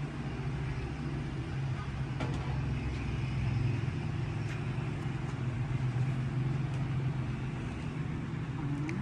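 Steady low background rumble and hum, a little louder about three to four seconds in, with a couple of faint clicks.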